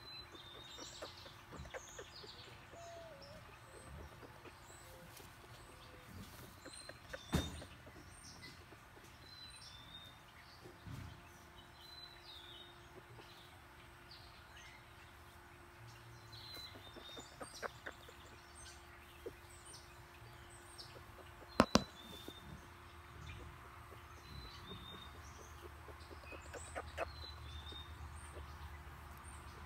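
Small birds chirping on and off over a faint low background hum. A few sharp clicks stand out, the loudest a quick pair about two-thirds of the way through.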